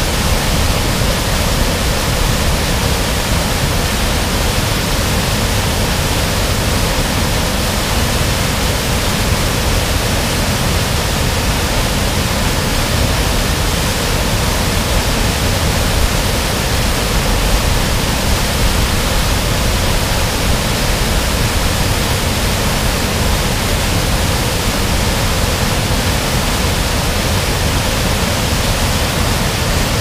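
Kvinnafossen, a tall waterfall, pouring down a rock face and rushing through the gully below: a loud, steady, unbroken sound of heavy falling water.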